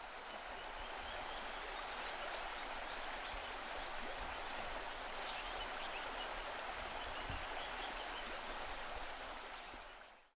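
Steady hiss of a river's flowing water, fading out near the end.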